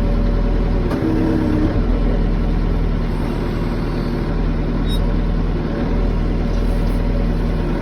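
Backhoe's diesel engine running steadily with a low, even drone.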